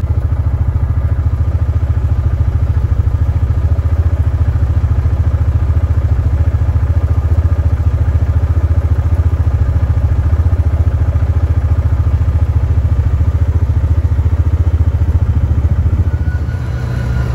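Yamaha Wolverine R-Spec side-by-side driving, its engine and drivetrain giving a steady low rumble with a rapid flutter, heard inside the enclosed cab. The rumble eases a little near the end.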